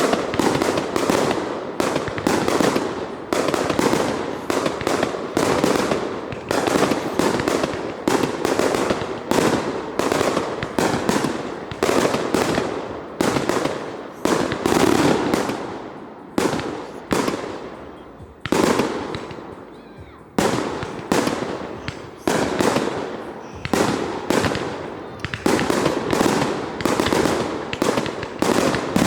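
Fireworks exploding in a rapid, continuous string of bangs, each with an echoing tail. They thin to a brief lull about two-thirds of the way in, then pick up again thick and fast.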